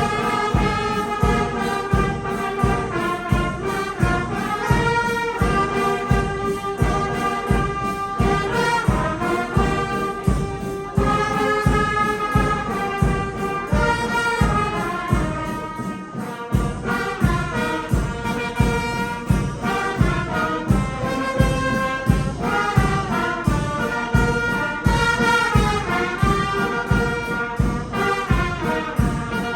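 Church brass band, with trumpets and trombones, playing a Christmas hymn melody over a steady beat of about two strokes a second, with a brief dip about sixteen seconds in.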